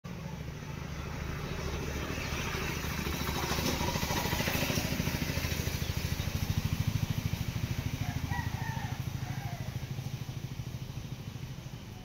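A small engine with a fast, even pulse, growing louder for about seven seconds and then fading, as it would when passing by.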